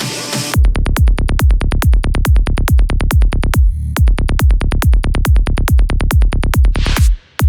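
Fast electronic dance music from a DJ set: a driving kick drum and bass in a quick, even beat that comes in about half a second in. The music breaks off briefly just after seven seconds before the beat returns.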